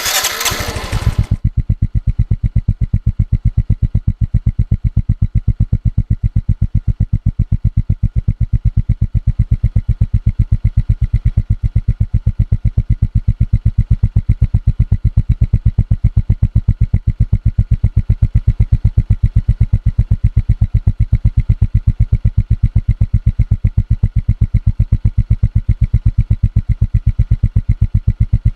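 Starter motor cranking an engine, a bass-heavy, even chugging of rapid pulses that keeps on without the engine catching, after a short harsh burst at the very start.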